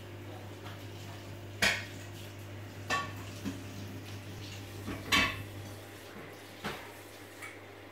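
Steady low hum from the reef tank's pump and powerhead, broken by a handful of sharp clinks at irregular intervals, the loudest about one and a half and five seconds in.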